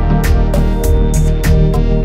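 Instrumental background music with held chords and a steady beat of percussive hits.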